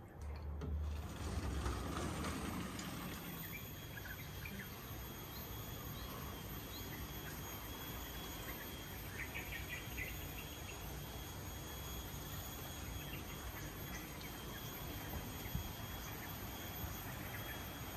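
A sliding glass door rolls open with a brief low rumble, letting in garden ambience: a steady high insect drone over a soft hiss, with scattered short bird chirps.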